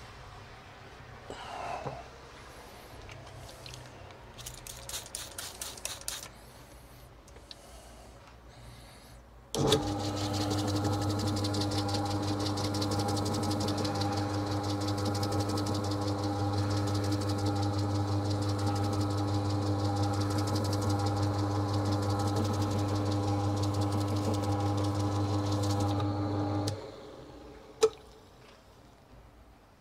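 Bowling ball spinner motor switched on about a third of the way in, running steadily with a low hum for about seventeen seconds while a grey Scotch-Brite pad is held against the spinning ball to sand its surface, then cutting off suddenly. Quiet handling clatter comes before it, and one sharp knock comes just after it stops.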